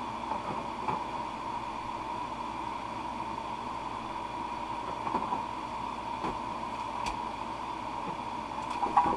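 Steady whirring of electric room fans, with a few faint knocks and rustles of things being handled and a louder knock near the end.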